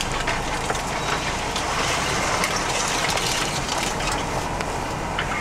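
Cabin noise of a 4x4 driving slowly over a rough, rutted dirt track: a steady low rumble with frequent knocks and rattles from the body and loose gear as it bumps along.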